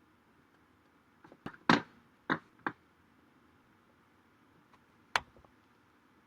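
Faint room hiss broken by a quick run of four or five sharp clicks or taps about a second and a half in, then a single click near the end.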